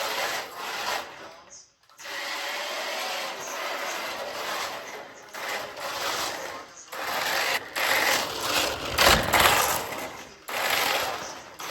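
1:14-scale RC drift car's electric motor whirring in bursts of all-or-nothing throttle, cutting out sharply between runs, about three times.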